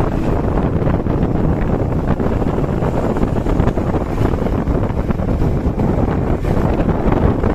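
Heavy wind buffeting on the microphone over a steady rumble of road and engine noise, as heard while riding along in traffic. No horn sounds.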